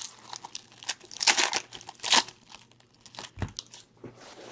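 Foil wrapper of a trading card pack being torn open and crumpled by hand: a run of sharp crinkles, loudest about one and two seconds in.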